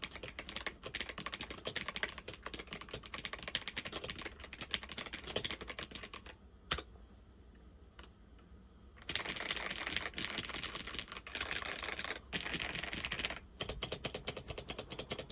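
Fast typing on a Zenith ZFL-181-93 laptop keyboard's Alps SKFL switches, a rapid run of clicky keystrokes. Many of the worn switches bind. About two-thirds of the way through the first half, one sharp keystroke is followed by a pause of about two seconds before the fast typing resumes, with two short breaks near the end.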